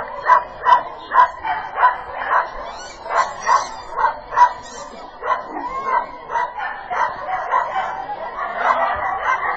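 A dog barking over and over, about two barks a second, with some higher yips mixed in.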